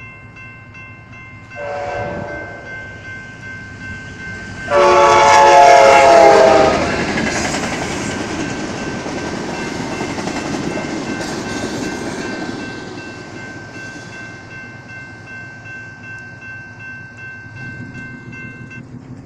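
Amtrak Talgo passenger train led by an F59 diesel locomotive sounds its horn: a short blast about two seconds in, then a loud, longer blast about five seconds in. The rush and clatter of the low Talgo cars passing follows and slowly fades. A grade-crossing warning bell rings steadily beneath it all and stops near the end.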